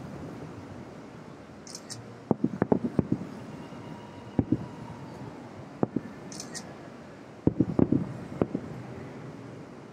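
Distant fireworks display heard from about two miles away: aerial shells bursting in quick volleys a second or two apart, the densest run of bangs about three-quarters of the way through.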